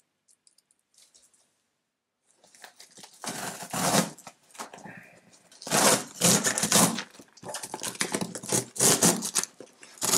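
Packaging being torn open by hand: a run of irregular ripping and crinkling noises that start about two seconds in, after a few faint clicks.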